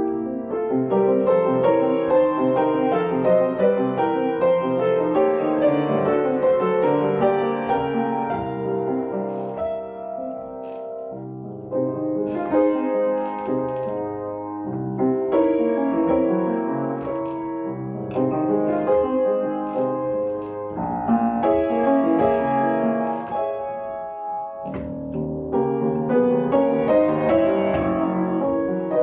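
Piano being played: a continuous passage of melody over chords, softer for a stretch about a third of the way in, with a short break a little before the end before the playing picks up again.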